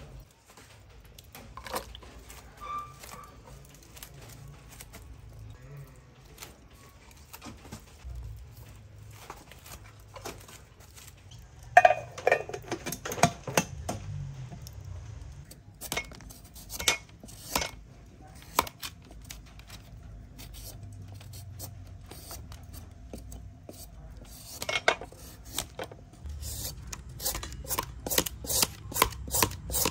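Metal mess tin clattering as its lid is put on and clamped with the folding handle: one loud metallic clank with ringing about twelve seconds in, then lighter clinks. Near the end, a serrated julienne peeler scrapes strands off a green papaya in quick repeated strokes.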